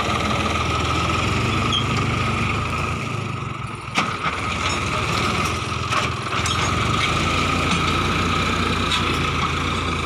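Farm tractor's diesel engine running steadily under load as it drags a tined cultivator through thick okra stalks. A sharp knock about four seconds in and another near six seconds.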